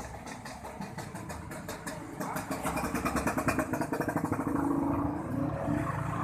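Small motorcycle engine running with a fast, even firing beat. It gets louder about two seconds in and stops abruptly near the end.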